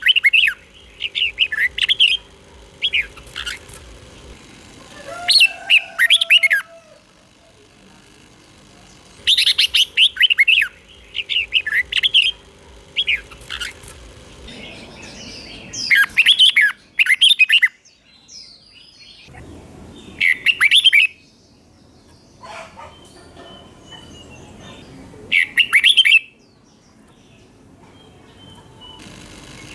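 Red-whiskered bulbul singing: about ten short, loud phrases of quick warbling notes, each under about a second and a half, repeated with pauses of one to four seconds between them.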